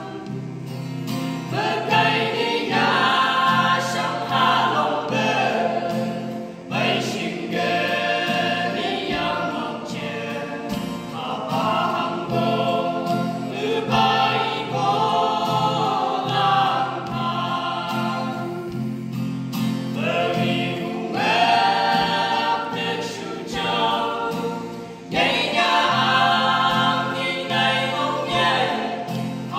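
Small mixed group of women and men singing a gospel song together in harmony, accompanied by an acoustic guitar. The voices come in phrases of a few seconds, with short breaks between them.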